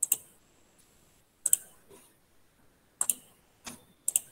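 Sharp clicks at a computer, several in quick pairs like double-clicks, coming irregularly about a second apart, as a recording is being stopped.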